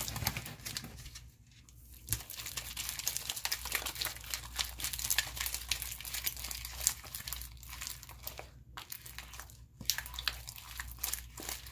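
Sticky, freshly mixed glue slime being stirred and pulled with a plastic stick in a plastic bowl: dense, irregular crackling and clicking as it stretches and pops, with a short lull about a second in. The slime is still sticky, not yet fully activated.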